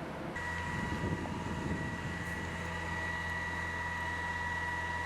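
Steady machine hum with a constant high-pitched whine over it, starting abruptly a moment in.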